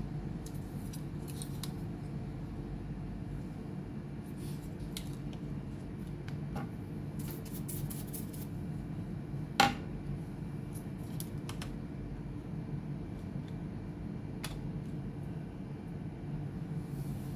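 Scattered light clicks and taps of small tools and parts being handled, with one sharp, much louder click about ten seconds in, over a steady low hum.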